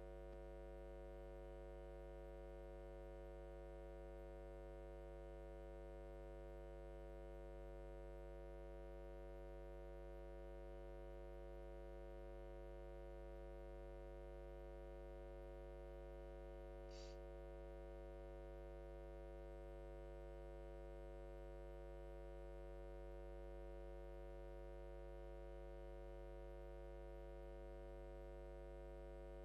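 Faint, steady electrical mains hum, a stack of unchanging tones, with one brief faint click a little past halfway.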